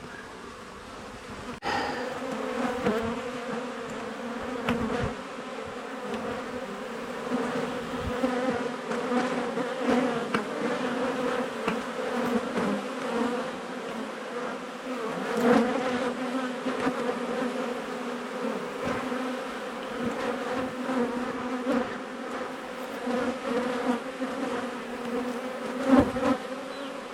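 A mass of honeybees from a colony opened up in a wall, buzzing in a steady hum that jumps louder about two seconds in, with occasional knocks and clicks of comb and tools being handled.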